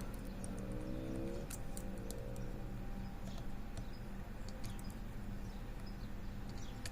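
Faint, scattered clicks of a lock pick tapping and lifting pins inside a pin-tumbler disc brake lock, over a steady low hum; one pin ends up overset.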